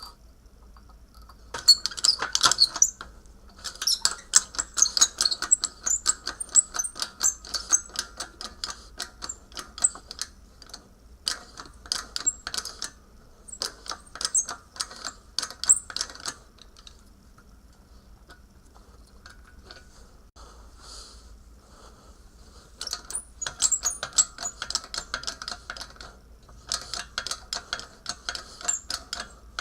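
Runs of rapid, irregular clicking and light rattling, each lasting a few seconds, with quieter pauses between them.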